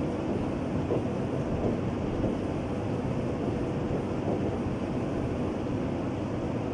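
Steady low background rumble with no distinct events, the constant noise floor of the room and microphone.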